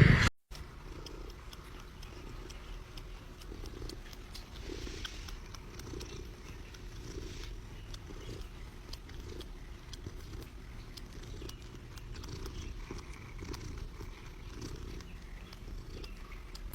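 A domestic cat purring steadily, swelling and easing about once a second with each breath.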